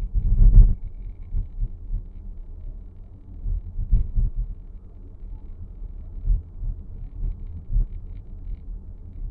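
Dashboard of a 2023 Nissan X-Trail e-POWER giving off irregular knocks and rattles over a steady low cabin rumble; the strongest knock comes about half a second in and another near four seconds.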